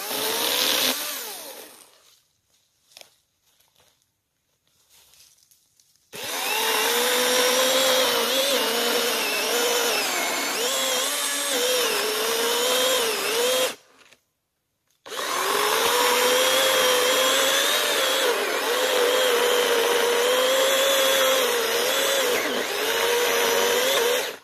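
Battery chainsaw's electric motor whining as it saws into the base of a small dead tree to fell it, its pitch wavering and dipping as the chain loads in the wood. A brief burst near the start, then two long cuts with a short stop of about a second between them.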